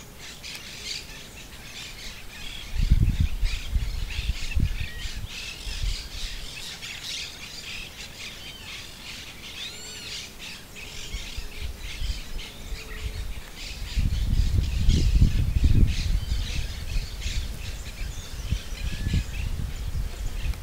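Many birds chirping and calling at once, a dense chorus of short calls throughout. Bouts of low rumble on the microphone come about three seconds in and again from about fourteen to sixteen seconds, louder than the birds.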